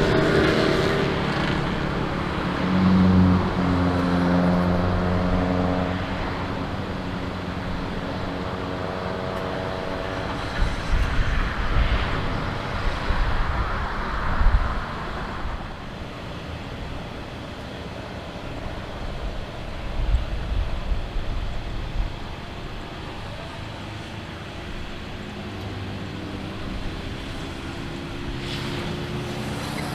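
Engines passing by outdoors: a steady engine hum for the first few seconds, then a rougher noisy stretch with uneven low rumbles, and a steady engine hum building again near the end.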